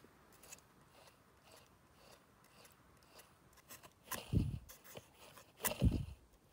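Worn heater blower motor from a Mk6 Ford Fiesta ST150, its squirrel-cage fan spun by hand. It turns with faint ticking at first, then gives two louder low rumbles, each falling in pitch, about four and six seconds in. The motor's bearings are shot; it turns with some resistance but doesn't sound that bad.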